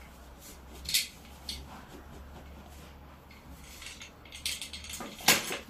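A metal bowl scraping and scooping through crumbled, half-dried tarhana dough on a cloth, with hands rubbing the crumbs. A few separate rustling strokes come first, then a quicker run of scrapes, with a sharp clink of the metal bowl about five seconds in.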